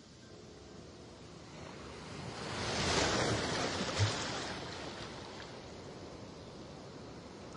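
Rushing water heard through an underwater GoPro's housing, swelling to a peak about three seconds in and then fading, with a single dull knock about a second after the peak.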